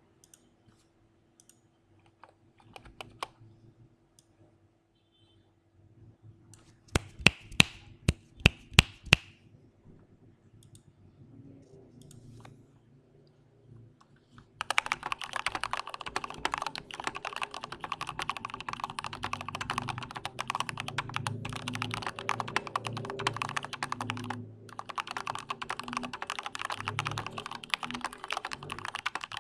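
Mechanical keyboard with Gateron Clear linear switches on heavy 125 g springs being typed on. A few scattered keystrokes and a short run of loud clacks come first, then steady fast typing from about halfway, broken by a brief pause.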